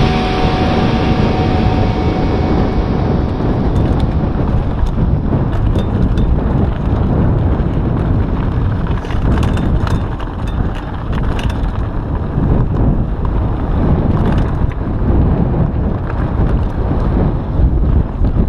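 Wind buffeting the microphone as a mountain bike rolls over a gravel and dirt track, with scattered sharp clicks and rattles from the tyres and bike.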